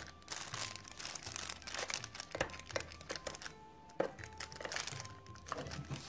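Thin plastic bag crinkling and a metal spoon clicking and scraping inside a tin can as cooked rice is pressed down into it, with a louder click about four seconds in. Faint music plays underneath.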